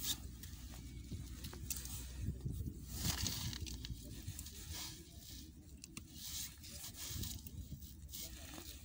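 Faint rustling and scraping of hands and a wire stripper working the surge arrester's earth wire, in short irregular bursts over a low steady rumble.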